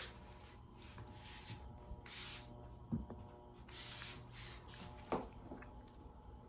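Faint rustling and rubbing with a few soft taps, from a wand cat toy being moved about; the clearest taps come about 3 and 5 seconds in.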